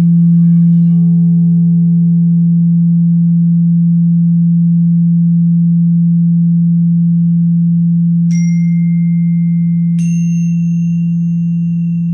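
A loud, steady low humming tone held throughout. About eight and then ten seconds in, two bright struck bell-like tones ring out and sustain over it.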